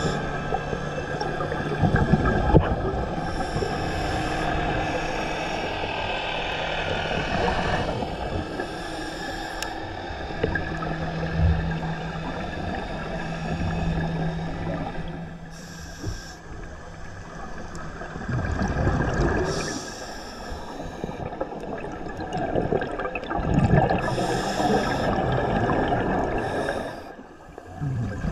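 Underwater sound on a scuba dive: a diver's exhaled bubbles rush from the regulator about every four to five seconds, over steady droning tones.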